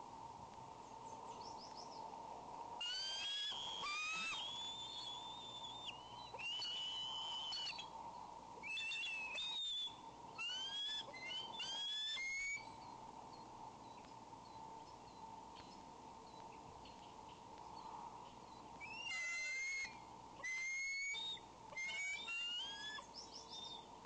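Bald eagles at the nest giving high, piercing whistled calls in bursts: some notes held about a second, others short rising or falling notes, with quiet gaps between bursts. A steady electrical hum runs beneath.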